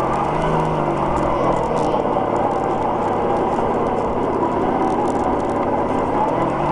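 Electric motor and gearbox of a radio-controlled rock crawler whining steadily as it drives over grass, the pitch wavering as it goes, with scattered faint clicks.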